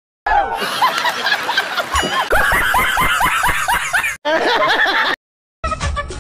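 Hearty laughter from several people in quickly cut reaction clips, breaking off abruptly twice, with a short silent gap near the end.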